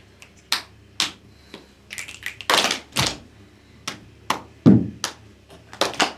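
Body percussion by a circle of children: sharp hand claps, finger clicks and taps coming one after another at an uneven pace, with a few heavier, deeper slaps among them.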